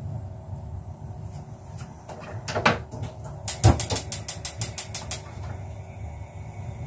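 Handling noise at a kitchen sink: scattered clicks and knocks, then a quick run of about a dozen sharp clicks a little after halfway, over a low steady hum.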